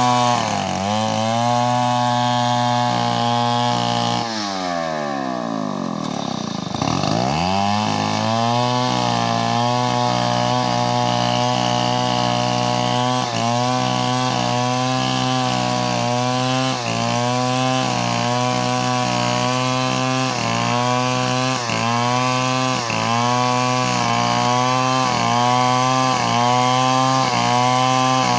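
STIHL two-stroke chainsaw running at high revs while splitting a coconut-wood log lengthwise. About four seconds in, the engine drops sharply toward idle and revs back up. From about halfway, its pitch dips briefly about once a second.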